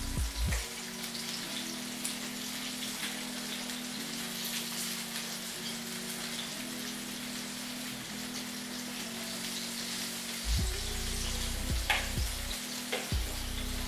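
Zucchini and tomato slices sizzling and crackling as they fry in a pan, with background music underneath. Near the end, a fork clicks a couple of times against the bowl as eggs are beaten.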